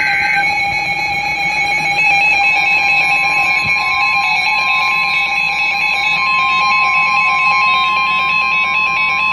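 An EAS header data burst (SAME) ends just after the start. About two and a half seconds in, the steady single-pitch 1050 Hz NOAA Weather Radio warning alarm tone begins and holds, announcing a new severe thunderstorm warning. Background music plays underneath.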